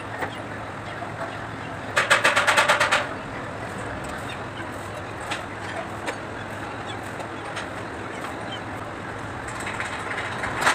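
Kubota D905 three-cylinder diesel turned over on the starter for about a second, a rapid even pulsing, then stopping without catching; a second cranking attempt starts right at the end. The engine is hard to start.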